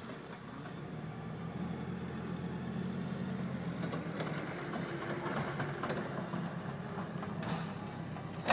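Forklift engine running steadily as the forklift drives with a loaded tote on its forks.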